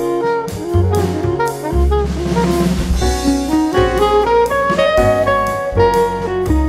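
Instrumental background music: a melody over chords, with a drum beat and a cymbal wash a couple of seconds in.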